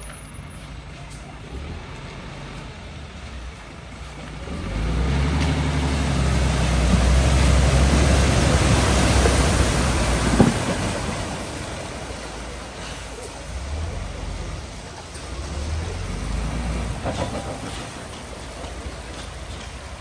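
DAF fuel tanker lorry's diesel engine driving through deep floodwater, its wheels throwing up rushing, splashing spray. Engine and water rise loud as it passes close, with one sharp knock near the middle. The sound then falls away and swells again briefly as it pulls off.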